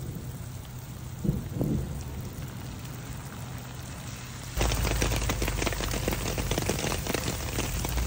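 Rain falling and pattering, with a steady low hum underneath and two short thumps about a second in. A little over halfway through, it suddenly becomes much louder: dense pattering of drops over a low rumble.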